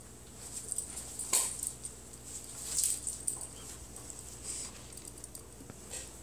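A dog moving about, making a few short scuffling and rustling noises.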